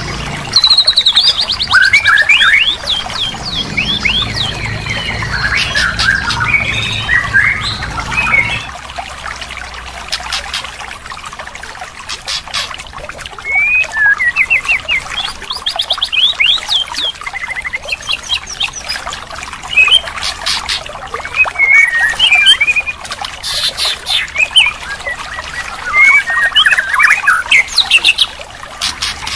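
Recorded songbird song used as masteran to coax a silent white-rumped shama into singing: fast, varied phrases of gliding whistles, trills and sharp chirps with short pauses between them. A low hum runs under the song until about nine seconds in.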